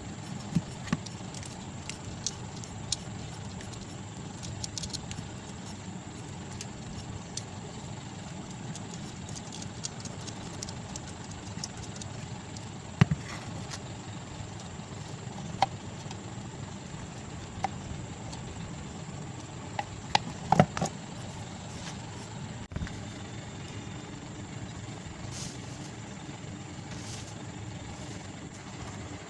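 Scattered clicks and taps of a screwdriver and hands on a stand fan's motor housing being taken apart, over a steady low background rumble.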